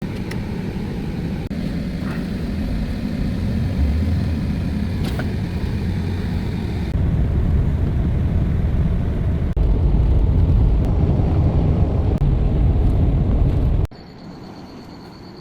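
Pressure-washing equipment running: a loud, steady low rumble that steps louder twice, then drops abruptly near the end to a quieter hum with a steady high whine.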